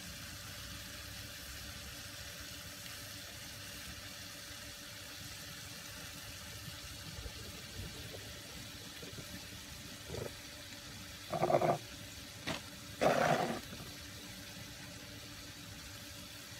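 Pan of sliced baby beans and carrots simmering in a little water and sauce: a steady bubbling hiss. About ten seconds in come a few short, louder sounds.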